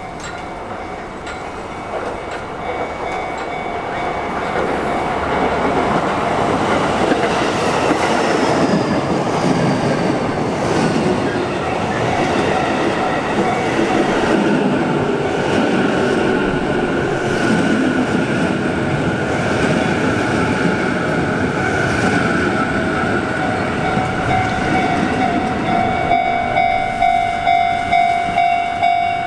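Sotetsu Line electric train running through a railway level crossing, its wheels clattering over the rails, while the crossing's warning bell keeps ringing. The train noise builds over the first few seconds, and near the end the bell's dings, about two a second, stand out.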